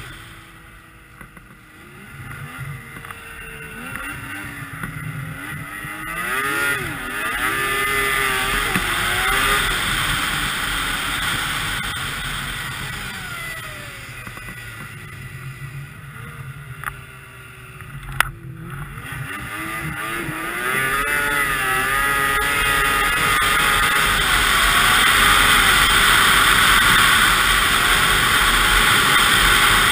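2002 Yamaha SX Viper 700's three-cylinder two-stroke engine heard from the rider's seat, its pitch rising and falling with the throttle over a rush of wind and snow. It eases off twice, near the start and again in the middle, then from about twenty seconds in runs louder and steadier at speed.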